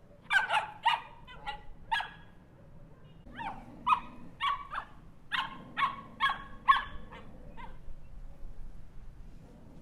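Small dog barking in quick high-pitched yaps: a burst of about four, a short pause, then a run of about nine more before it stops near the end.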